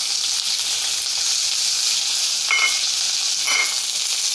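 Sliced shallots sizzling steadily in hot coconut oil, just added to a tempering of mustard seeds, dried red chillies and curry leaves in an aluminium wok.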